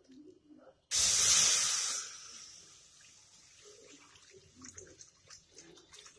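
Milk pouring from a steel bowl into an empty metal kadhai: a loud splashing hiss starts suddenly about a second in, then after about a second settles into a much quieter steady pour as the milk pools in the pan.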